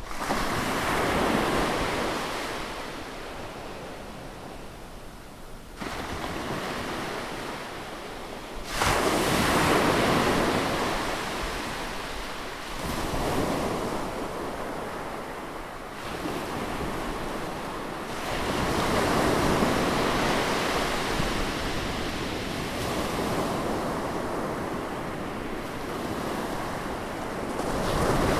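Sea waves breaking close to the shore, washing in and drawing back in surges every few seconds, with one sharper, louder break about nine seconds in.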